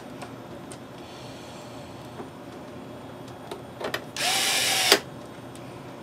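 Handheld electric screwdriver driving a screw for just under a second, its motor giving a steady whine, with a few small clicks just before.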